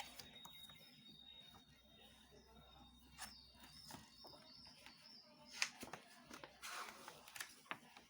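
Near silence with sparse faint clicks and light rustling, and one sharper click about five and a half seconds in.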